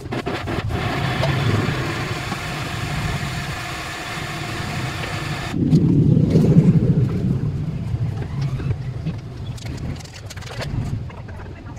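Small countertop electric blender running, its motor whirring as it purées red chillies and garlic into a dressing, then switched off suddenly about halfway through. Afterwards a low rumble and a few knocks as the jar is handled.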